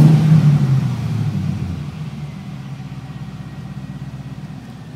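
LS1 5.7-litre V8 in a BMW E36, heard from inside the cabin: a sudden burst of revs that falls back over about two seconds to a steady idle.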